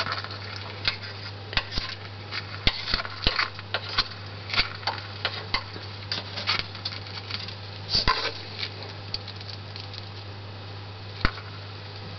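A small pet moving about, making irregular light clicks and ticks, a few a second, over a steady low electrical hum.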